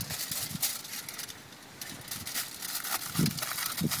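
Aluminium kitchen foil crinkling in irregular small crackles as a sheet is handled and folded around cut potato pieces.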